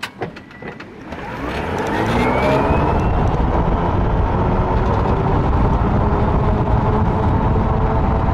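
Electric golf cart with a high-torque motor pulling away from a dead stop: a click, then a motor whine that rises in pitch for about two seconds and levels off at speed. Loud, steady wind noise on the microphone runs under it once the cart is moving.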